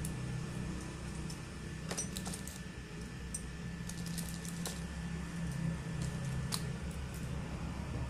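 A set of steel lock picks on riveted metal handles being handled and fanned out, giving light metallic clinks and jingles in scattered clusters over a steady low hum.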